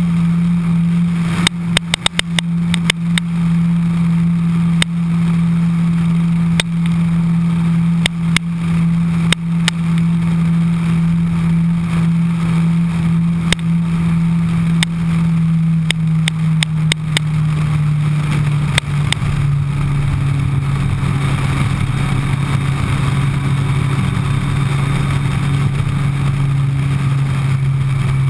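Suzuki Hayabusa inline-four engine running steadily at cruising speed, heard from on the bike, its note dropping in pitch twice past the middle. Sharp crackles break in, mostly in the first half.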